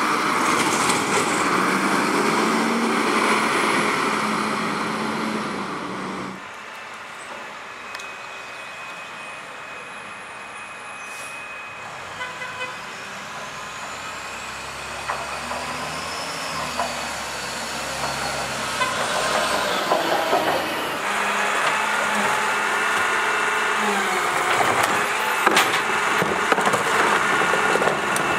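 Garbage trucks' diesel engines running: one close and loud for the first six seconds, then a sudden drop to a quieter stretch of distant truck engine with a thin steady whine, and from about twenty seconds in a truck running close again with several sharp knocks and clanks as a cart is tipped into a rear loader.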